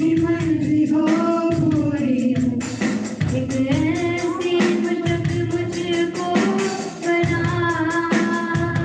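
A worship song played over a PA: a singing voice holding long notes that bend slowly, over a steady drum beat.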